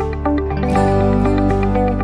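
Background music with sustained chords and a steady pulse of notes. The bass and chord change a little under a second in.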